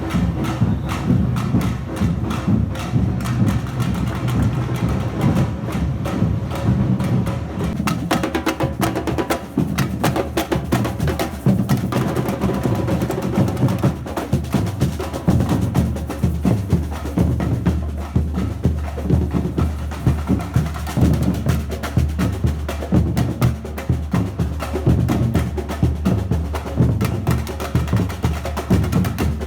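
Carnival parade percussion band drumming a steady rhythm: dense rapid strikes over deep, regular bass drum beats.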